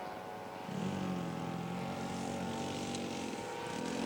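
Glow engines of radio-controlled scale model airplanes running with a steady propeller drone. About a second in, a second, lower engine note joins the first, wavering slightly in pitch.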